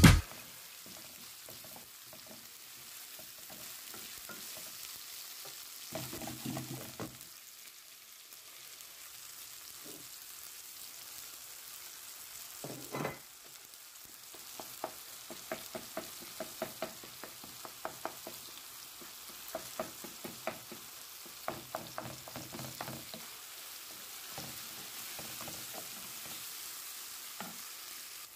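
Food sizzling steadily in a frying pan while a spoon stirs it, knocking and scraping against the pan in short runs, most busily through the middle.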